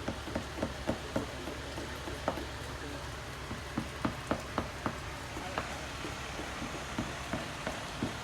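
Steady rain falling, with a run of sharp taps from drops striking a hard surface, coming in bunches a few tenths of a second apart.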